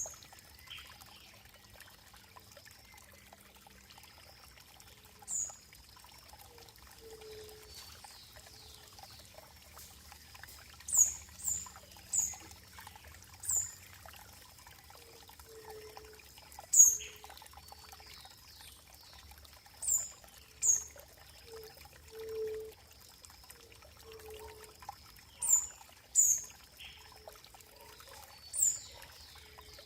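Running water trickling and pouring, with short, sharp high-pitched plinks that come singly or in small clusters every few seconds.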